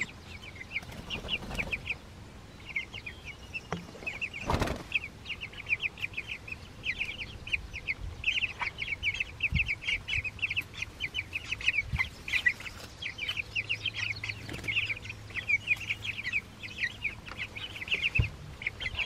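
A flock of young meat chicks peeping continuously, a dense run of short high chirps several a second with brief lulls. A single knock sounds about four and a half seconds in.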